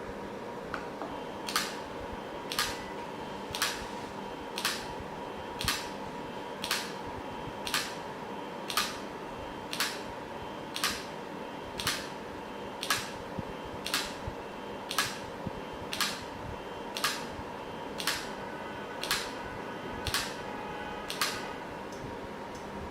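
Limit switch clicking about once a second, some twenty times, as a stepper-motor-driven arm presses and releases it in a repeated test cycle, over a steady hum.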